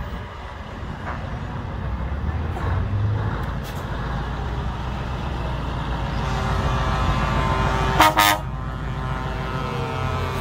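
Scania 143M truck's V8 diesel engine running as it drives slowly past, growing louder as it comes close, with a short, loud horn blast about eight seconds in.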